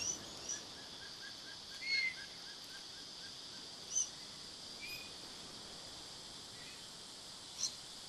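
Natural ambience: a steady high insect hiss with short bird chirps scattered through, the clearest about two, four and seven and a half seconds in. A faint run of quick even ticks sounds during the first few seconds.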